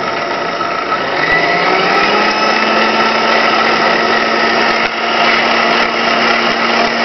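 Vintage Kenwood Chef A700D stand mixer's motor running steadily, with the K-beater spinning in an empty stainless steel bowl. Its whine rises slightly in pitch a second or two in as the speed control is turned up.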